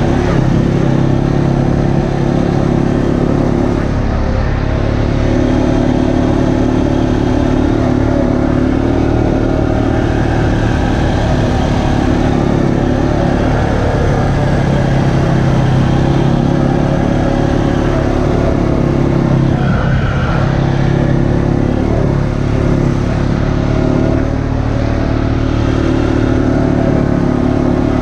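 Single-cylinder four-stroke ATV engine running steadily while riding a dirt trail. Its pitch dips and picks up again a few times as the throttle is eased and reopened.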